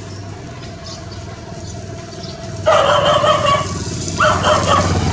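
A dog giving two drawn-out yelping calls, a longer one about three seconds in and a shorter one near the end, over a low steady rumble.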